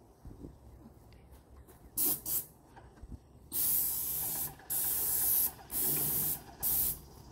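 Airless paint spray gun spraying exterior wall paint in bursts as the trigger is pulled and released: one short burst about two seconds in, then four bursts of up to about a second each in the second half.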